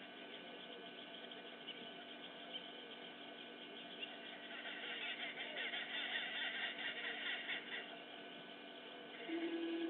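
Birds chirping and calling over a steady outdoor hiss, growing louder about halfway through. A steady low hum starts just before the end.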